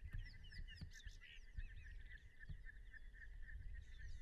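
Frog chorus: a steady pulsing trill with many quick falling chirps above it, over a low rumble with a few soft thumps.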